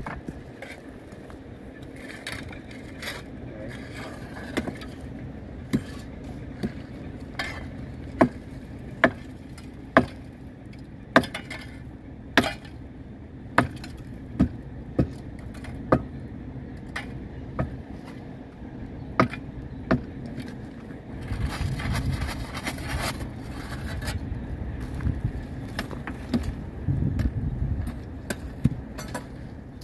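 Sledgehammer blows knocking the broken mould and slag off a freshly poured thermite rail weld: sharp strikes about once a second, with a few more near the end. Under them runs a steady low rumble that grows louder a little past the middle.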